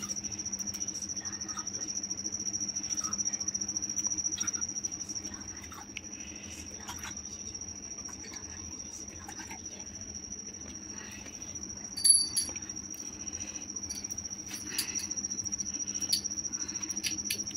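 A cricket chirping in a steady high trill, with scattered light clicks and a brief high ring about twelve seconds in.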